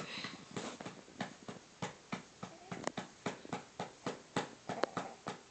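A hand patting a baby's back in a steady rhythm, about two to three pats a second, to bring up a burp.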